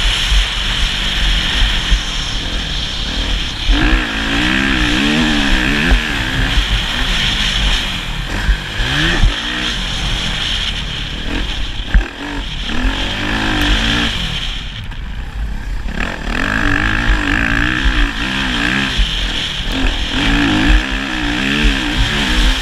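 Motocross motorcycle engine revving up and falling back again and again as it rides the track, with a brief lull about halfway through. A steady low rumble runs underneath.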